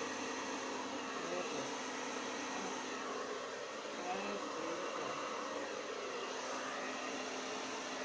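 Handheld hair dryer running steadily, a rush of air over a steady low hum, used to blow wet pour paint out into bloom shapes on a canvas.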